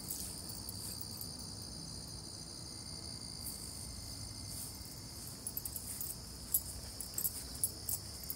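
Crickets chirping in a steady high-pitched chorus. From about halfway through, scattered light clicks and taps sound over it.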